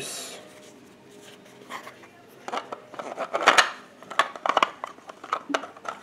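Hard 3D-printed plastic puzzle pieces clicking and scraping against each other as a panel is handled and fitted into the box: scattered sharp clicks and rubbing, busiest from about two and a half seconds in.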